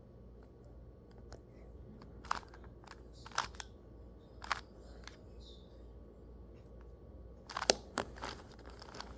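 Plastic 2x2 Rubik's cube being turned through an algorithm: scattered clicks and clacks of the layers turning, with a quicker run of clicks near the end.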